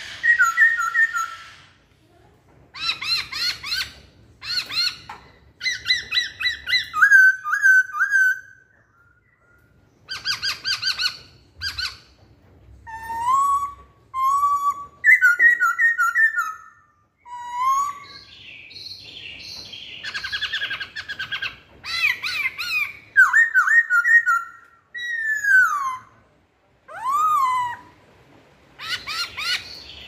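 Black-throated laughingthrush singing: a string of loud phrases of clear whistles, some sliding down or up, mixed with rapid chattering runs. Each phrase lasts a second or two, with short pauses between.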